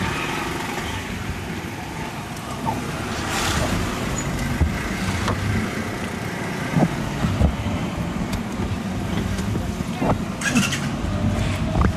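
Car engine and road noise heard from inside the cabin while driving slowly, with scattered knocks and rattles.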